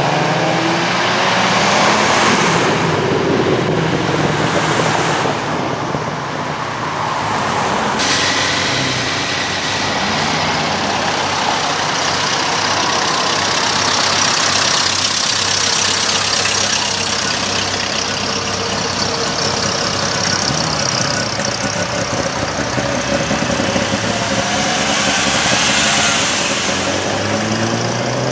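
A procession of cars, classic and newer, driving past one after another. Their engine notes rise and fall as each one comes and goes, over steady road and tyre noise.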